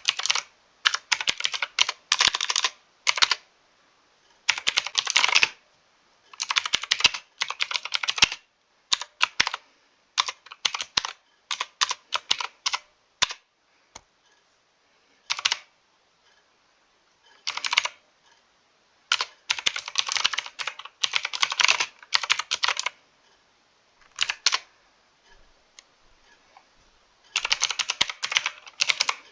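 Typing on a mechanical computer keyboard: fast runs of key clicks broken by short pauses, with a few lighter, sparser stretches.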